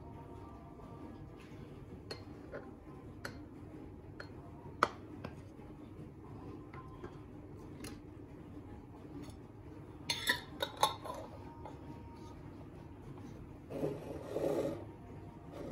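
Glass jar and metal screw-top lid being handled: scattered light clicks and knocks, then a quick cluster of sharp clinks about ten seconds in as the lid goes on, and a short scraping rub near the end as the jar is moved on the countertop.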